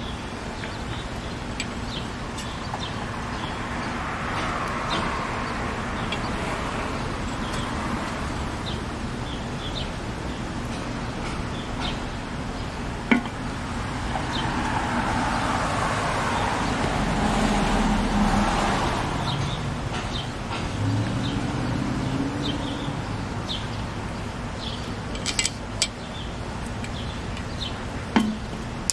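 Road traffic passing on a street: a steady background with two vehicles swelling past and fading, and a low steady hum. A few sharp clicks and taps of tools and a can being handled stand out over it.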